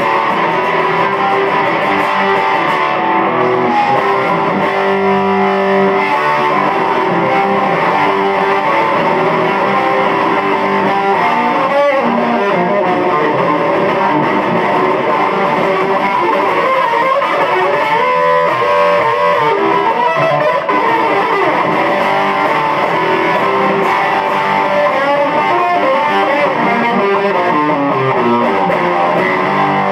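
Electric guitar played through a Marshall Studio 15 amp with no effects, a continuous instrumental passage.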